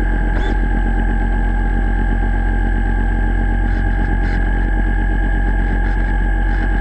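Electric motor of a radio-controlled model boat running steadily, heard underwater: a constant whine over a low hum, with a few faint ticks.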